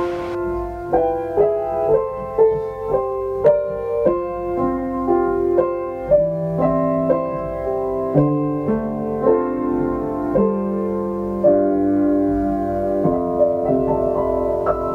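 Piano music: a gentle melody of single notes, about two a second, over lower sustained chords.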